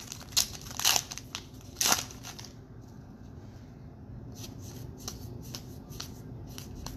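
Baseball trading cards being handled and sorted: a few sharper swishes and snaps of card stock in the first two seconds, then lighter taps and ticks as the cards are set down.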